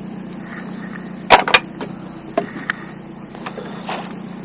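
Small boat's motor running steadily, with two sharp knocks a little over a second in and a few lighter clicks and taps after.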